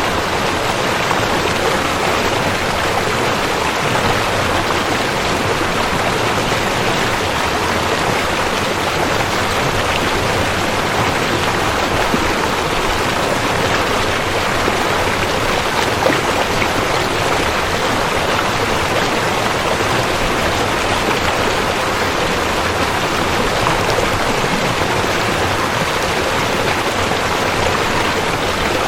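River water flowing over rocks: a steady, even rush of running water that neither builds nor fades.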